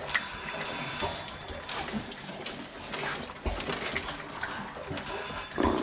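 Staffordshire bull terrier puppies playing, with small cooing whines and grunts over scuffling and scattered sharp clicks.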